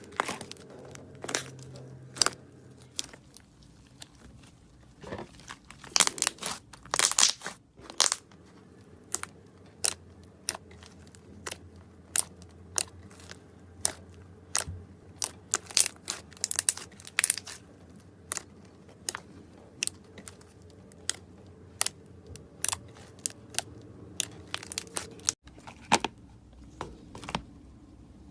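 Slime being squeezed and pressed, giving irregular sharp crackling and popping clicks, with a denser run of crackles about six to seven seconds in.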